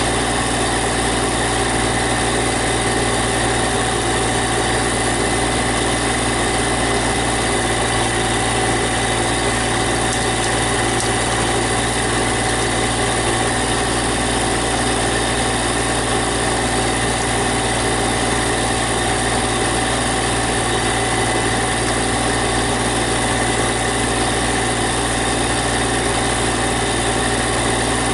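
GC1710 compact tractor's engine idling steadily, with no change in speed.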